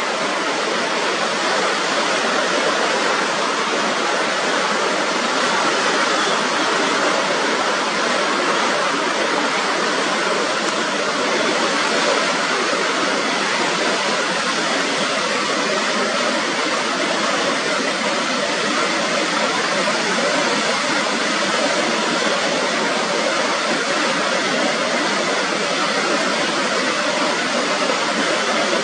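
Fast-flowing river rushing steadily over rapids.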